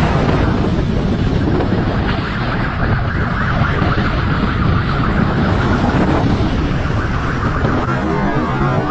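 Motorcycle riding fast, heard from a camera on the bike: wind rushing over the microphone on top of the engine running.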